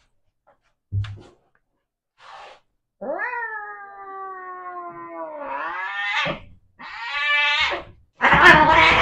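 Tabby cat yowling while held down on an exam table: an angry, agitated cat. First comes a long drawn-out yowl of about three seconds that sags and then rises again, then a shorter yowl, then a louder, harsher cry near the end. A soft thump about a second in.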